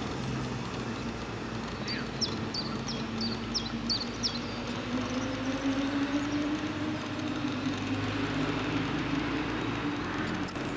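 A 2017 Nissan GT-R's twin-turbo V6 accelerating, its engine note climbing slowly and steadily in pitch. A small bird gives about seven quick chirps about two seconds in.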